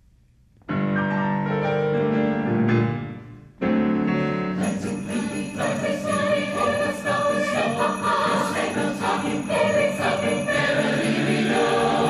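Large mixed high school choir singing, with piano: held chords come in about a second in and break off briefly, then sleigh bells start jingling in rhythm under the choir and piano.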